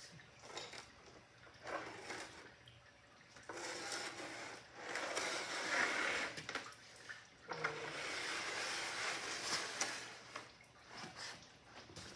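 Drained engine oil pouring and splashing, in irregular noisy spells with a few small knocks.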